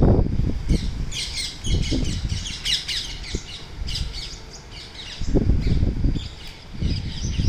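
Garden birds calling: many short, high calls in quick succession, thickest in the first few seconds. Bursts of low rumble come in about two seconds in, again around five to six seconds, and briefly near the end.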